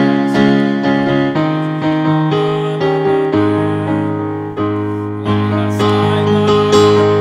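Grand piano playing slow chords under a melody, each group of notes struck and left to ring and fade.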